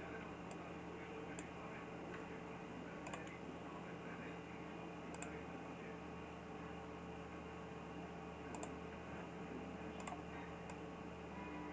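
Computer mouse button clicking about six times at uneven intervals, each a quick press and release. Under it runs a steady low hum with a faint high whine.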